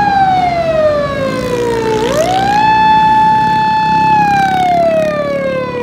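Japanese police car siren wailing: its tone slides slowly down, sweeps quickly back up about two seconds in, holds high, then slides slowly down again near the end. A low steady rumble sits underneath.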